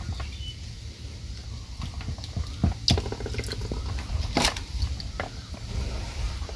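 Water sloshing and dripping in a bucket as hands work boiled freshwater mussels out of their shells, with scattered clicks of shell against shell, the sharpest about three seconds in and again about four and a half seconds in. A low steady hum runs underneath.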